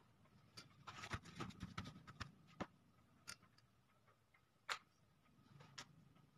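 Irregular light clicks and taps: a quick cluster of them in the first few seconds, then three single sharper clicks, the loudest near the middle.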